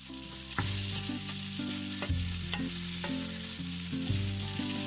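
Spaghetti and shrimp frying in butter and olive oil in a pan, a steady sizzle as they are stirred, with a few sharp taps of a utensil against the pan.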